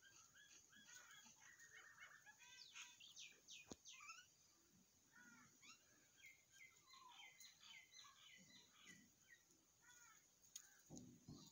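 Faint chirping of small birds: many short, quick calls overlapping throughout. A couple of soft low thuds come near the end.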